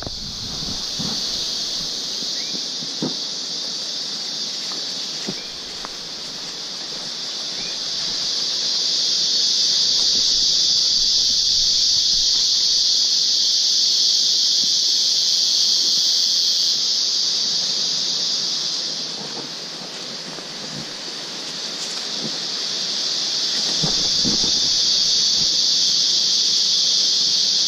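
Insect chorus in tropical forest: a loud, steady high shrill that swells about eight seconds in, fades around twenty seconds and swells again near the end. Occasional soft footsteps on the trail sound underneath.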